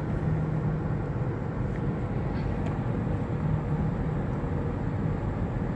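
Steady road and engine noise inside a moving car's cabin, with a low, even hum.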